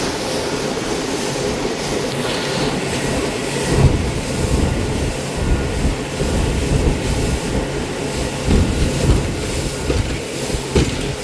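Motorboat under way: a steady engine drone with dense rumbling and a few irregular low thumps.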